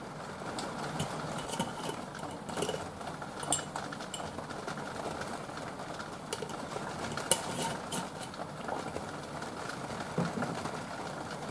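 A metal teaspoon clinking against glass and ceramic jars and a ceramic plate as seasoning is scooped out and sprinkled onto a plate of spaghetti: a scatter of short, light clinks and taps. Under it runs a steady hiss of rain.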